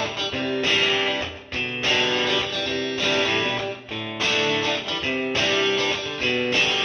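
Background music: guitar playing a repeating pattern of plucked notes.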